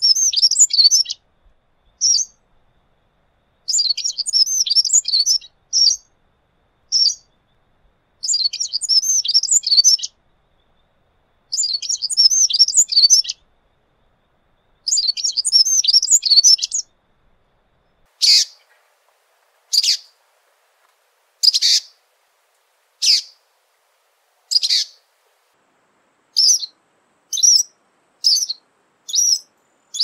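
Tepui wren (Troglodytes rufulus) singing: several rapid, high warbled song phrases of about two seconds each. Past the halfway point come single short, sharp call notes, about one every second and a half, coming faster near the end.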